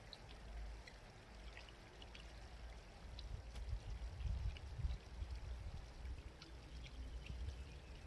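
Small countryside stream babbling and trickling, with short high splashy ticks. A low, uneven rumble swells from about three seconds in.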